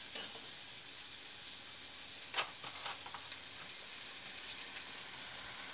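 Faint steady sizzle of a frying pan on the hob as an omelette is being cooked, with a couple of soft clicks a little over two seconds in.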